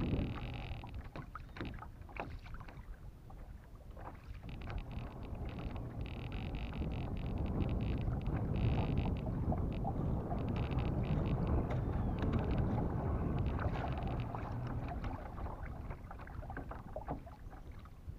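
Baitcasting reel being cranked in short spells of a second or two, over water lapping against a plastic kayak hull that grows louder in the middle.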